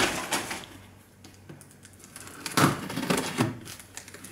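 Packaging being handled while unboxing: rustling that dies away at the start, then a short bout of rustling and knocking about two and a half seconds in.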